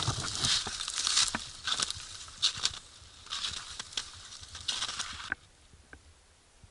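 Footsteps crunching in snow while pushing through dense, snowy branches that scrape against a jacket, in irregular bursts. The crunching and scraping stop suddenly about five seconds in.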